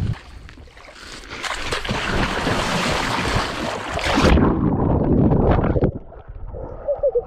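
A person plunging into lake water: a rush of loud splashing builds up, then cuts to a muffled underwater rumble for about two seconds as the camera goes under, followed by lighter splashing on surfacing.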